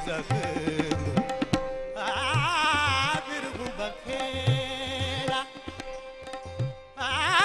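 South Asian classical vocal music: a male voice sings fast, wavering melodic runs and a long trilled note over a steady drone, with tabla strokes keeping time. Swarmandal strings are plucked in the opening seconds, and the singing pauses briefly before resuming near the end.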